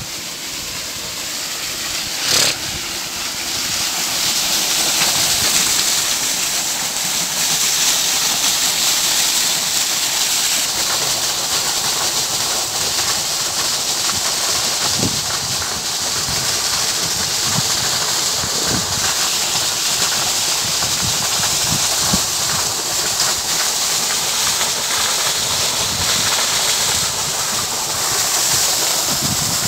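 Pumped irrigation water gushing from a pipe outlet, splashing onto stones and rushing along a ground channel: a loud, steady rush that grows louder over the first few seconds. A short knock about two seconds in.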